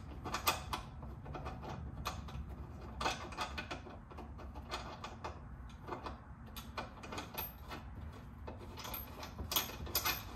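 Small, irregular metal clicks and taps as a washer and nut are fitted onto a trailer axle mounting bolt by hand, some clicks coming in quick little runs.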